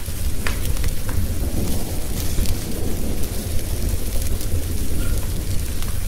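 Thunderstorm: steady rain over a continuous low rumble of thunder, with a few sharp crackles about half a second and one second in.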